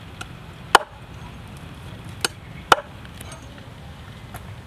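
Meat cleaver chopping through a raw chicken's legs on a wooden cutting board: three sharp chops, about a second in and twice more near the middle, with a couple of lighter taps.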